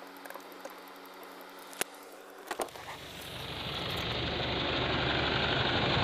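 Car cabin with a faint steady engine hum and two sharp clicks, then wind and road noise rushing in and swelling for about two seconds as the car's window opens while driving.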